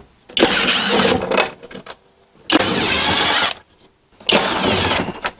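Kobalt 24V XTR cordless driver running in three bursts of about a second each, backing out the Torx screws that hold down a lawn mower's motor housing.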